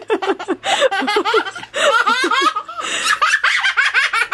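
People laughing in several bouts of giggles.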